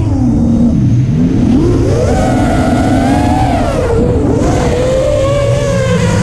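RC aircraft's electric motor and propeller whining, heard from the onboard camera. The whine drops low about half a second in, climbs steeply over the next second and then wavers up and down with the throttle. Wind rushes over the microphone underneath.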